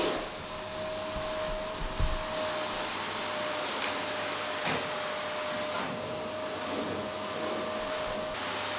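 Vacuum cleaner running steadily: a constant rush of air with a steady whine over it.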